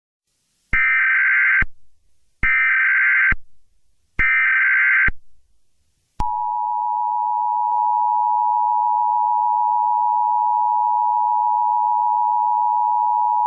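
Emergency Alert System SAME header: three short bursts of screechy digital data tones, each a little under a second long. About six seconds in, the EAS attention signal begins, a steady two-tone alarm held to the end. Together they announce an emergency alert broadcast.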